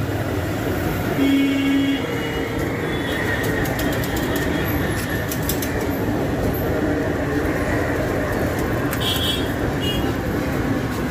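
Steady rumble of trains and street traffic, with a short, loud steady tone a little over a second in.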